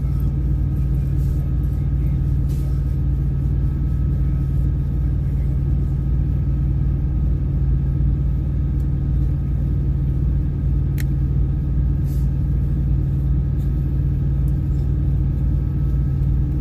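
Steady low rumble of a truck's engine, running without change, with one faint click about eleven seconds in.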